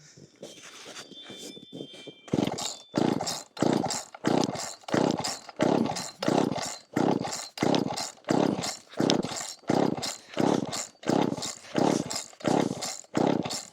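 Homelite Super 2 SL chainsaw being pull-started on full choke: the recoil starter cord is yanked over and over, about three pulls every two seconds, each one a rasping crank of the two-stroke engine that does not fire. With no primer bulb, the cold engine needs many pulls before it catches.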